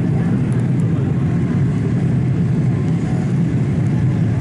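Steady cabin noise inside a Boeing 787-8 airliner in flight: a constant low drone of the jet engines and rushing air, with no change in level.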